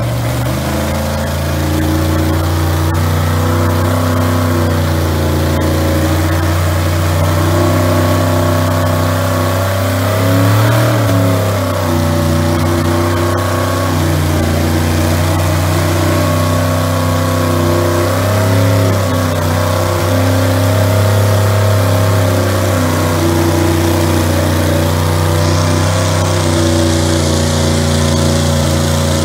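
Engines of lifted mega trucks running hard under load in a truck tug-of-war, held steady, with brief swells in pitch about ten and nineteen seconds in.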